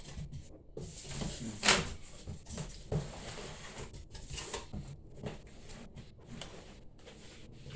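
Scattered light knocks and clicks of computer parts and a PC case being handled, the sharpest knock a little under two seconds in.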